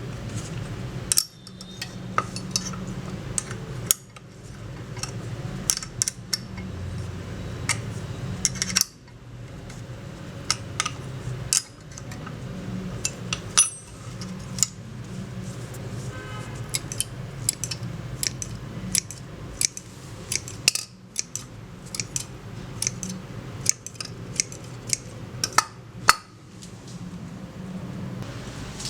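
Small steel pruner parts and hand tools clinking, tapping and knocking against each other and a hard surface, in irregular sharp clicks over a low steady hum. The sound drops out abruptly several times.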